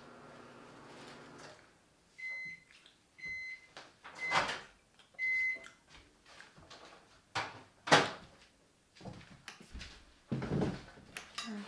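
A microwave oven hums and then shuts off as its timer ends. It beeps four times about a second apart. Clunks and knocks follow, like its door being opened and dishes handled, the loudest about eight seconds in.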